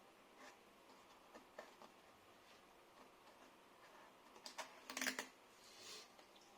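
Faint, scattered light clicks and taps from hands handling small parts and tools on an opened iMac, with a short cluster of louder clicks and a brief rustle about five seconds in.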